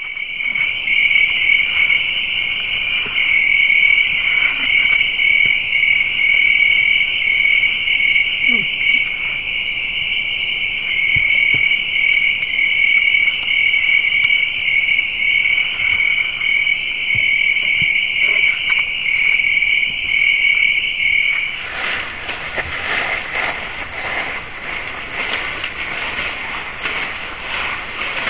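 Night insects chirring in a steady, high-pitched, pulsing drone. About 21 seconds in it cuts off suddenly and gives way to a rough rushing hiss.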